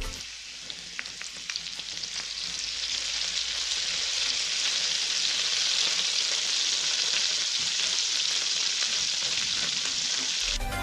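Melted butter sizzling in a nonstick frying pan. There are a few sharp crackles early on, and the sizzle grows louder over the first couple of seconds, then holds steady.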